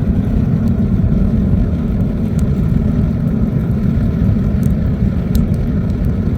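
Homemade coal furnace with a ventilator blowing air into the fire, giving a loud, steady, low roar, with a few faint crackles and snaps from the burning fuel.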